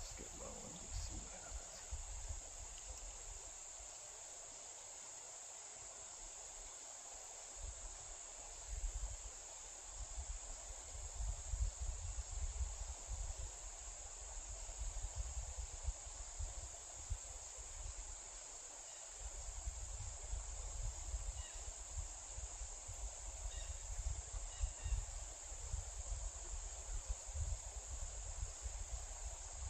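A steady, high-pitched chorus of crickets or similar insects, with low rumbling gusts on the microphone at times.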